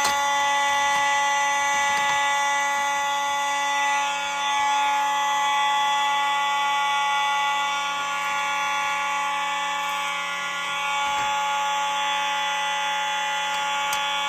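Several Simplex 4903-series fire alarm horn/strobes sounding together in continuous mode: a steady, unbroken electronic horn blare with no temporal pattern.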